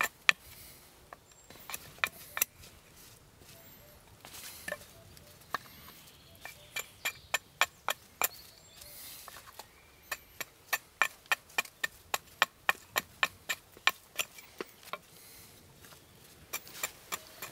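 An axe choked up under its head makes short chopping cuts into a wooden spoon blank resting on a stump. The result is a long series of sharp wooden knocks, some coming quickly one after another and some with short pauses between them, as the blank's rough edges are rounded off.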